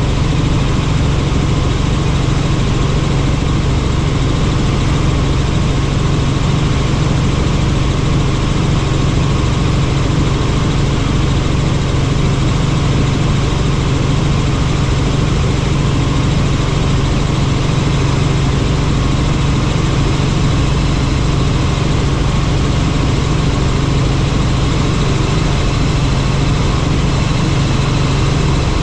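Helicopter running steadily, its engine and rotor heard from on board as a loud, constant drone with a strong low hum.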